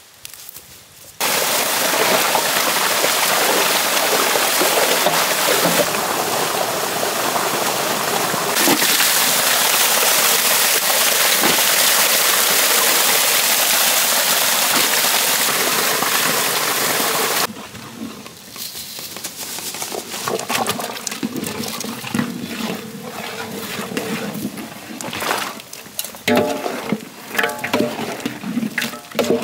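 Water gushing and splashing into an aluminium basin as small fish are rinsed, a loud even rush that starts about a second in and cuts off sharply after about 17 seconds. After that, irregular metal clatter and scraping from a ladle stirring in a large aluminium cooking pot.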